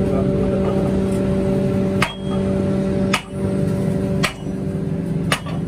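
Hammer blows on a red-hot iron ring held on an anvil: four strikes about a second apart, starting about two seconds in. A steady hum runs underneath.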